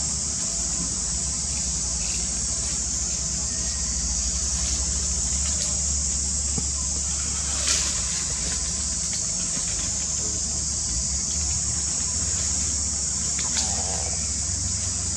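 Steady high-pitched drone of insects in the forest, over a low rumble, with a sharp click about halfway through and another near the end.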